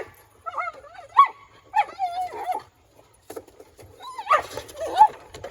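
Border collie whining and yipping in a string of short cries that slide up and down in pitch, pausing briefly about halfway through.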